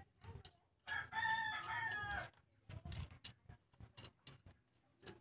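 A rooster crows once, starting about a second in and lasting over a second. Around the crow, a small hand hoe scratches and scrapes in potting soil in short strokes.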